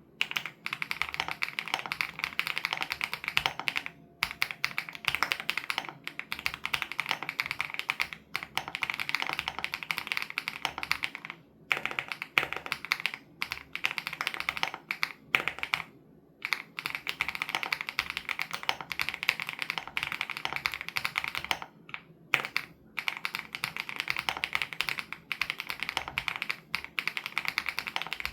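Steady, fast typing on a WOB Crush 80 Reboot mechanical keyboard with Hyacinth switches: dense runs of keystrokes broken by a few short pauses.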